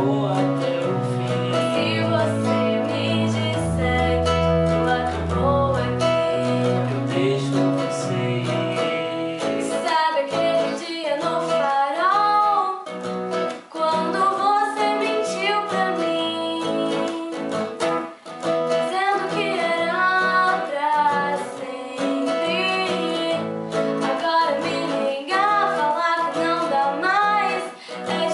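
Acoustic guitar and keyboard playing a song, with a woman singing; the low sustained notes drop out and the voice comes to the fore about ten seconds in.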